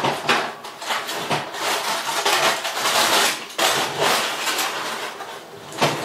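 Aluminium foil crinkling and a thin disposable aluminium roasting pan clattering and scraping on an oven rack as the foil cover is pulled off and the pan is slid out of the oven, in a dense run of crackles.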